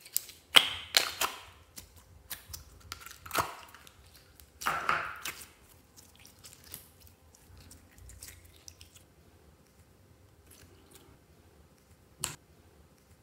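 Glossy slime being pushed out of a plastic tub and folded by hand: a run of sharp sticky pops and clicks in the first couple of seconds, a longer wet squelch about five seconds in, then fainter crackles and one sharp pop near the end.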